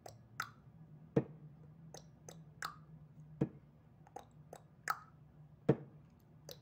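Metal tools clicking and clinking on the bolts of a refrigeration filter drier housing's cover flange: socket ratchet and wrench working the bolts, with a few heavier knocks about every two seconds. A steady low hum runs underneath.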